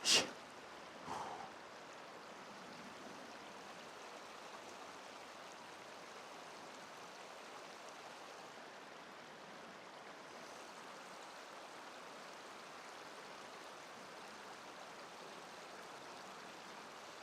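Steady rush of flowing river water, an even hiss that holds level throughout, after a brief burst of voice at the very start.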